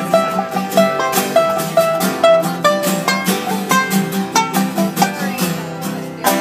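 Acoustic guitar played live, a run of quick plucked notes in a steady, even rhythm.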